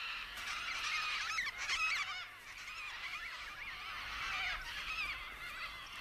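A flock of Major Mitchell's cockatoos calling, many wavering calls overlapping into a continuous chatter.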